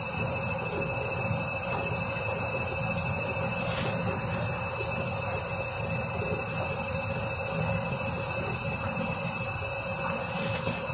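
Candy front-loading washing machine spinning its drum: a steady low rumble with a constant motor whine.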